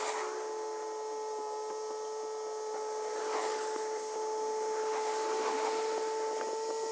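Distant Yanmar F195 compact tractor tilling a rice field: a steady engine drone that rises slightly in pitch and loudness as it draws nearer, with a few faint clicks.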